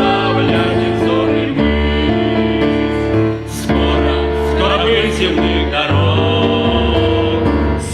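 Music from a Christian song, with held chords and a melody line.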